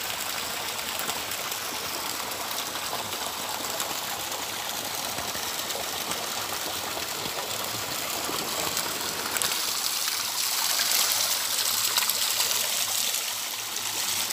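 Water pouring from a spring spout onto rocks and into a pool, a steady rushing that grows louder about two-thirds of the way in.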